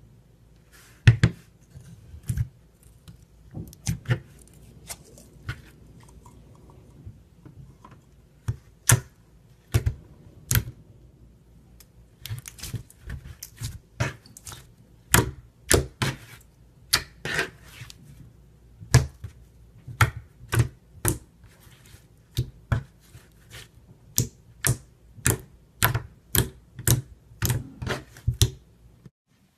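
Clear slime being squeezed and pressed, making a run of sharp, irregular clicking pops that come thicker and faster from about halfway through.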